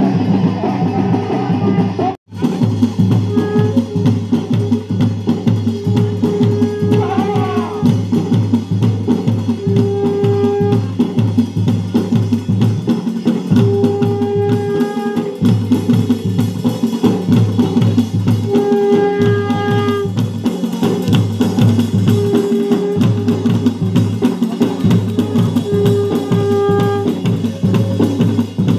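Loud, fast drumming of jagar ritual music, the beat dense and steady. A short held note sounds over it every few seconds. The sound drops out for an instant about two seconds in.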